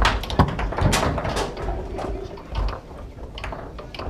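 Foosball in fast play: sharp, irregular clacks of the ball struck by the plastic men and knocking off the table walls, with the steel rods sliding and rattling in their bearings. The clacks come in quick clusters in the first second and again near the end.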